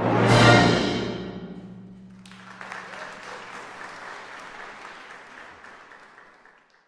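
A symphony orchestra with solo piano ends on a loud held final chord that rings away over about two seconds. An audience then applauds, and the applause fades out near the end.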